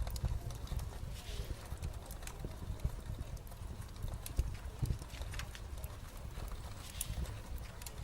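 Irregular light clicks and taps of small craft pieces and paper clips being handled on a desk, over a low handling rumble.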